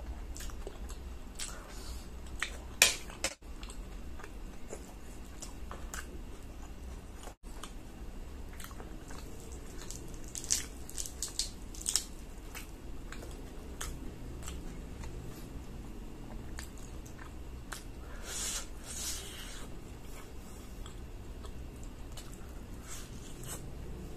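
Close-up eating sounds: chewing and biting on spaghetti and fried chicken. A sharp click comes about three seconds in. A cluster of crisp crackles a little before halfway comes as a fried chicken leg is torn apart by hand.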